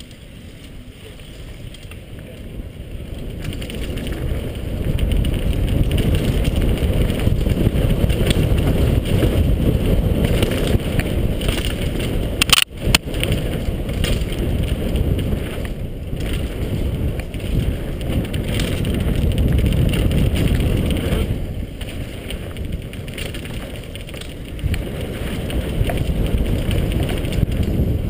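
Mountain bike ridden fast down a dirt trail: wind rumbling on the helmet camera's microphone with the tyres running over dirt and rock, building up over the first few seconds as speed rises. There is a single sharp knock about twelve and a half seconds in.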